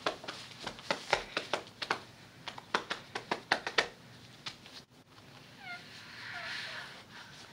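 Webbing straps of a buckle carrier being pulled tight: a quick run of sharp clicks and rustles. About six seconds in come a few short, falling, mewing cries.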